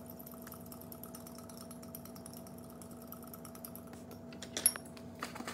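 Metal spoon stirring sugar in a glass mason jar of hot water: faint scrapes and small ticks, then a sharp clink of spoon on glass near the end, over a steady low hum.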